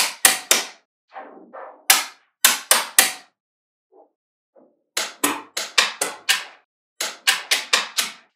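Small magnetic balls clicking sharply as rows of them snap together and onto a growing slab: single clicks at first, then quick runs of clicks, with a short lull around the middle.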